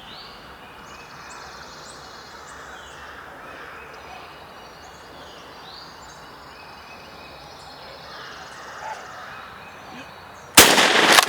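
Quiet woods with songbirds singing, then a single shotgun blast about ten and a half seconds in, by far the loudest sound, cutting in suddenly and ringing on.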